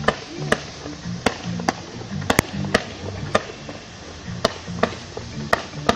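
Fireworks going off in a quick, irregular series of sharp cracks, about two a second, as rockets are fired one after another, with the show's music playing underneath.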